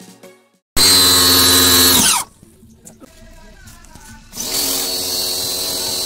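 Lotus 1400 W electric pressure washer: its motor starts abruptly, runs for about a second and winds down as it stops. About two seconds later it starts again and runs steadily with the hiss of the water jet spraying.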